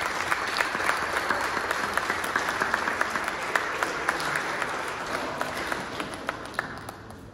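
A small crowd applauding with many overlapping hand claps, thinning out and dying away near the end.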